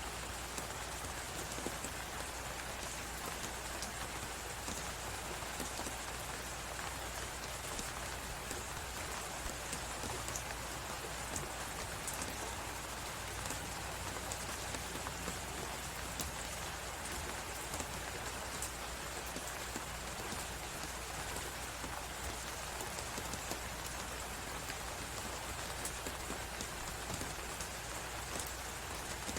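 Crackling fireplace under a steady hiss of blizzard wind: many small, scattered pops over an even rushing noise.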